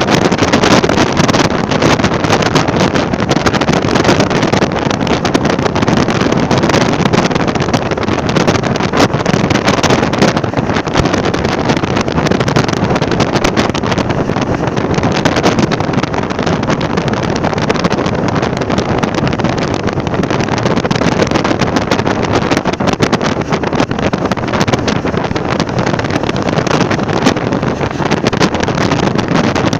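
Wind blowing strongly and steadily: a loud, even rushing noise that does not let up.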